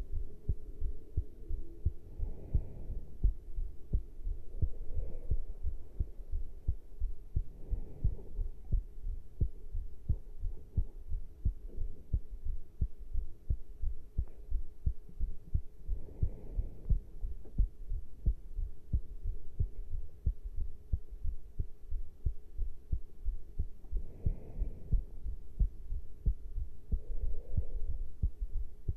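Human heartbeat after caffeine intake: a steady, continuous run of low thudding beats. Softer swells come through every few seconds over a faint steady hum.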